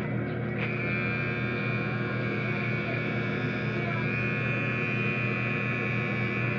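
Electric hair trimmer running with a steady buzz.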